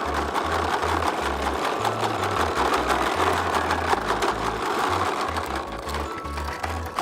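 Rapid plastic clattering and rattling of a toy lawn mower being pushed along a path, over background music with a moving bass line.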